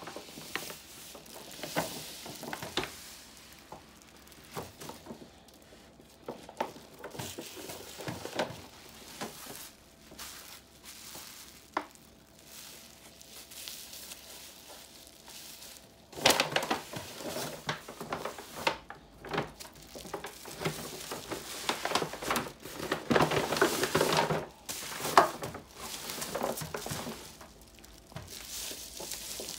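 Bubble wrap around a laptop crinkling and rustling as it is handled and unwrapped by hand, with scattered clicks. Louder stretches of crinkling come about halfway through and again a few seconds before the end.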